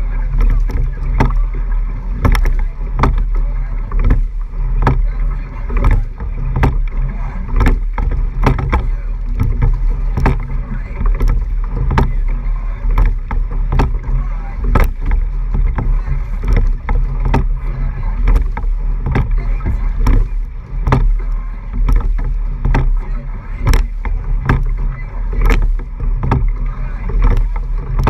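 A rowing eight under way at race pace: water rushing along the hull right at the microphone, with wind noise and frequent sharp clicks and knocks through the strokes.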